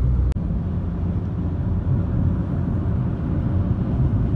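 Steady drone of engine, tyres and wind inside a car cruising on a motorway, with a brief cut-out about a third of a second in.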